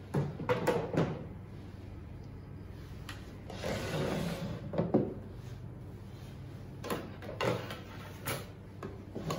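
Hard plastic kitchen-appliance parts knocking and sliding on a wooden table as stand-mixer bowls, two mixer bodies and a turntable disc are moved and set down: a cluster of knocks near the start, a longer scraping stretch around four seconds in, and a few more knocks near the end.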